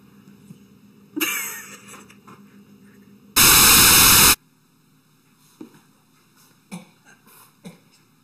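A loud, even burst of TV-static hiss about a second long, cutting off suddenly: a static transition effect between clips. About a second earlier, a sudden loud sound fades out over about half a second.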